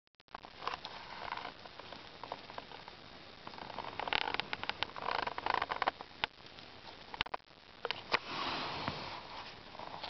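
Irregular light scratching, tapping and rustling close to the microphone as a large water beetle's legs scrabble on a wooden tabletop and a hand prods it, with a few sharp clicks.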